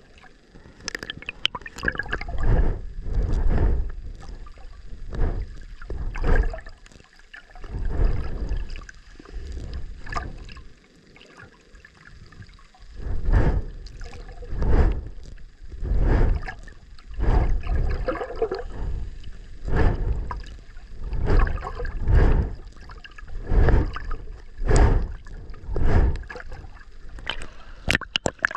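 Water sloshing and rushing over a camera held at or just under the sea surface, in repeated surges about every second and a half.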